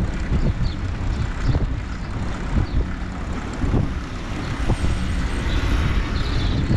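Riding noise from an ICE Adventure recumbent trike rolling along a tarmac street: a steady low rumble of tyres and wind on the microphone, with irregular small thumps.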